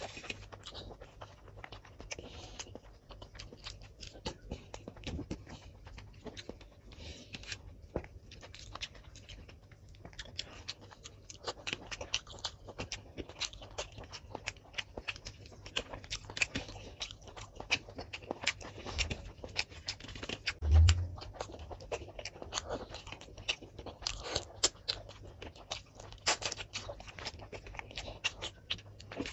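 Close-up eating sounds: wet chewing and lip smacking, with fingers picking chicken off the bone and scraping rice on a steel plate, many short clicks and smacks throughout. One loud low thump about two-thirds of the way through.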